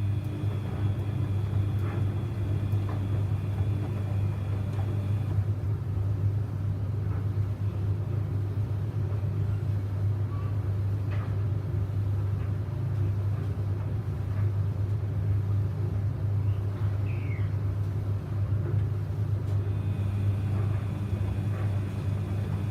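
Samsung washing machine running a 95°C Baby Care boil-wash cycle: a steady low hum throughout, with faint scattered clicks and knocks from the drum.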